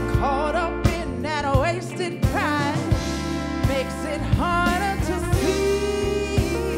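Live funk-soul band playing to a steady drum beat with bass, guitars and keys. A female lead voice sings wavering, sliding melodic lines, and a sustained horn note, with trumpet and trombone, comes in about two-thirds of the way through.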